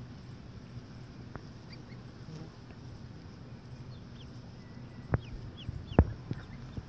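Goslings and ducklings peeping, scattered short high peeps that fall in pitch, over a steady low rumble. Two sharp clicks about five and six seconds in are the loudest sounds.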